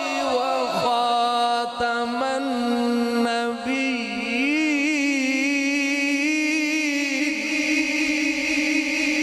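A man chanting a religious recitation in long, ornamented held notes. The pitch wavers and turns through the first half, then settles into one long sustained note.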